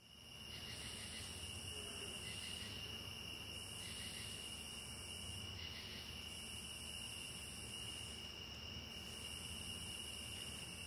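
Insect chorus: a steady high-pitched trill, with a still higher buzzing band that switches on and off about every two seconds.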